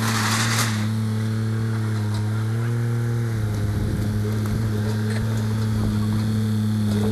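Diesel engine of heavy demolition equipment running steadily, its pitch shifting briefly about halfway through, with a short burst of noise in the first second.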